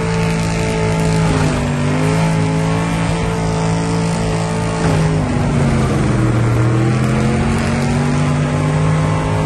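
Ford Escort's V8 engine held at high revs during a burnout, heard from inside the car, over the hiss of spinning tyres. The revs dip briefly about a second and a half in, then drop to a lower, steady level about five seconds in.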